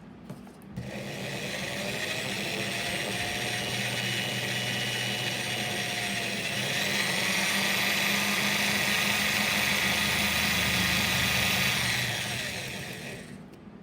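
Small electric power tool running: it spins up about a second in, its whine rises higher and louder about halfway through, and it winds down near the end.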